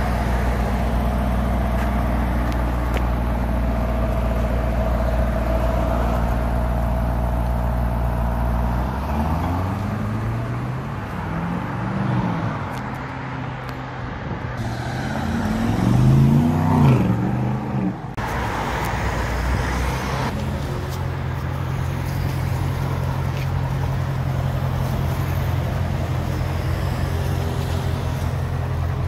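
Aston Martin DBX's twin-turbo V8 idling steadily. About nine seconds in, the car drives past with the engine pitch rising and falling twice as it revs, loudest in the middle. After a sudden change it idles steadily again.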